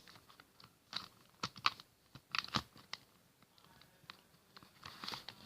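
Plastic Rubik's cube pieces clicking and scraping as they are handled and a stiff piece is pushed into place. There are scattered sharp clicks in the first three seconds and a brief soft rustle near the end.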